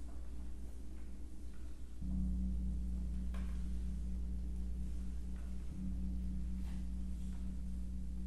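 Tam-tam giving a low, sustained drone with a slow wavering pulse, swelling about two seconds in. A few faint clicks sound over it.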